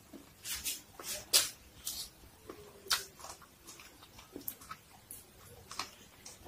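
Close-up eating sounds of a person biting and chewing corn on the cob: irregular wet smacks and crunchy clicks, with one sharper bite about a second and a half in.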